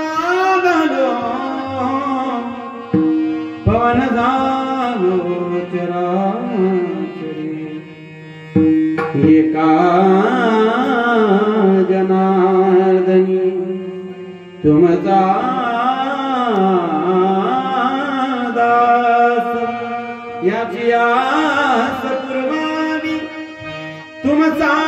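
A young male voice sings a slow devotional kirtan melody at the microphone. He holds long notes with wavering, ornamented pitch over a steady held drone, and his phrases break off and start again every few seconds.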